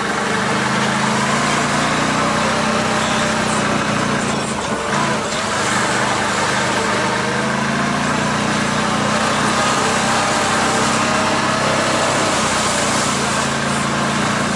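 Engine of a small off-road vehicle running steadily as it drives, a constant drone that dips briefly about four to five seconds in.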